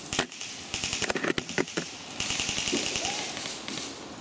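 Airsoft guns firing: a string of sharp snaps and clicks, then a longer burst of rapid automatic fire from about two seconds in until near the end.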